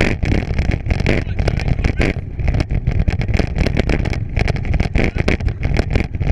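Wind rumbling on the microphone of a bike being ridden at speed over a rough trail, with a rapid, irregular run of rattles and knocks as the bicycle jolts over the ground.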